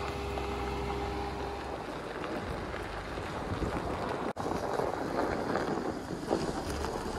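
Jeep Wrangler Rubicon's engine running with a steady hum as it climbs a snowy track; after a cut about four seconds in, wind noise rushes over the microphone as the Jeep drives on over snow.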